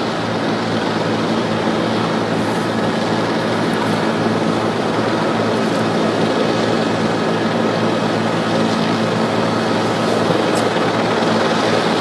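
Steady drone of a helicopter's rotor and engine, a constant hum over a wash of noise that holds unchanged throughout.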